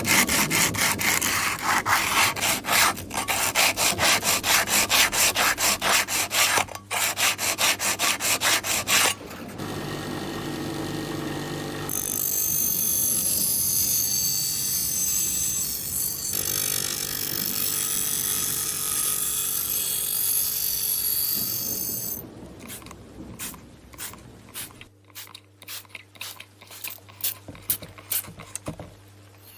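Hand-tool rasping in a knife restoration: quick, even back-and-forth strokes, about four a second, for the first nine seconds. A steady, continuous scraping follows for about ten seconds, then slower, separate strokes near the end.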